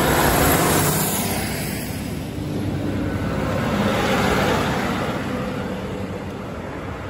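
East Midlands Railway Regional diesel multiple unit running past along the platform: engine and wheel noise that swells twice as the coaches go by, then eases off as the train draws away.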